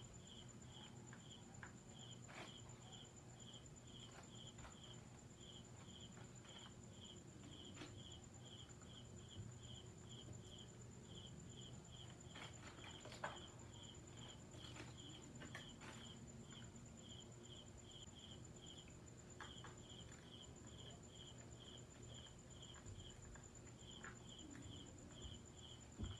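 Faint, steady chirping of a cricket, about four chirps a second with a few short pauses. A few faint clicks and taps come from small metal hardware being handled, the sharpest about halfway through.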